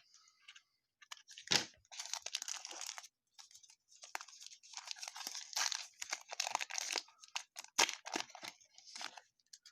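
A foil trading-card pack wrapper crinkling and tearing as it is ripped open by hand. The cards inside are being handled, with irregular crackles and a few sharper snaps.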